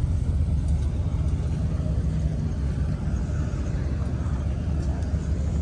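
A vehicle engine running steadily at idle, a low steady rumble.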